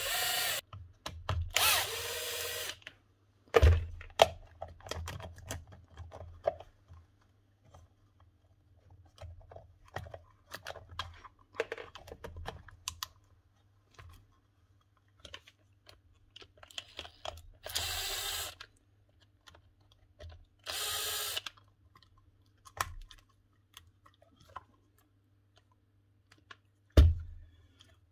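Cordless drill-driver run in short bursts of about a second, backing out the screws that hold the socket outlets in a 110 V site transformer's plastic case. Clicks and rattles from handling the loosened parts come between the runs, with a few knocks.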